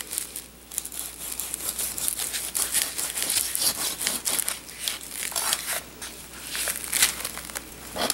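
Plastic wrap around a packaged rack of raw pork ribs crinkling and crackling as it is handled, in irregular bursts, loudest about three and seven seconds in.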